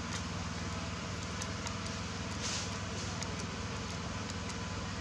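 Portable generator's small engine running steadily, an even low hum, with a few faint clicks and taps over it.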